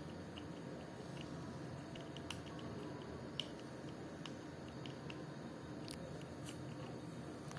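Quiet room tone with scattered small, faint clicks and ticks, a few of them sharper.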